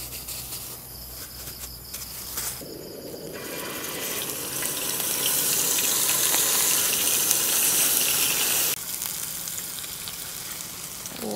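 Raw ground-beef patties sizzling as they go into hot oil in a pan on high heat. The sizzle starts about three seconds in and grows louder, then drops suddenly to a quieter sizzle a few seconds before the end.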